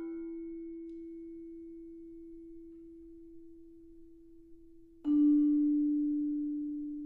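Vibraphone: one note left ringing and slowly fading, then a slightly lower note struck with yarn mallets about five seconds in, louder, ringing on as it fades.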